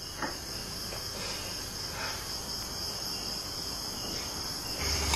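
Insects chirping in a steady, high-pitched drone, with a low hum coming in near the end.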